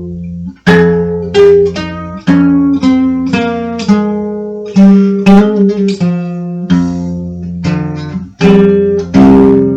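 Dark folk music played on an acoustic guitar: a run of single notes and chords, each sharply plucked and left to ring out, with a brief pause about half a second in.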